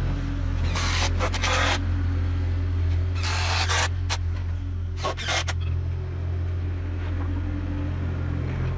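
Excavator's diesel engine running steadily, with three short rushes of noise about one, three and five seconds in, while the machine spreads crusher-run gravel.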